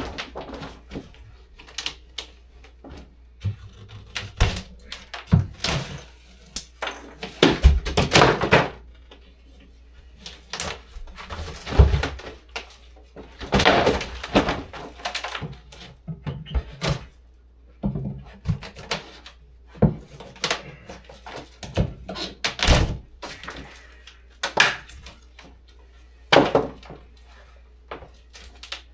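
Interior walls being torn out by hand: irregular knocks, thuds and cracks, with a few longer crashing stretches as pieces break away and fall.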